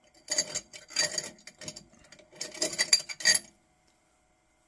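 Small metal watch spring bars being handled in and out of a little plastic bag on a wooden tabletop: light metallic clinks and plastic crinkling in several short bursts, cutting off abruptly about three and a half seconds in.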